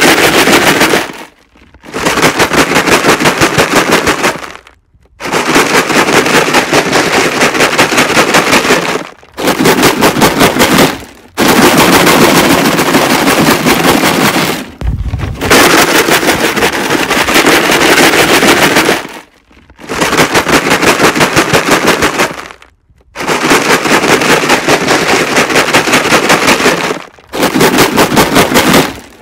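Rocks rattling inside a plastic jug, shaken hard in bursts of a few seconds with short pauses between, each burst a fast rhythmic clatter.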